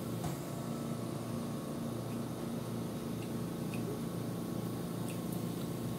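Chewing a mouthful of creamy pasta salad, with a few faint wet mouth clicks, over a steady low hum.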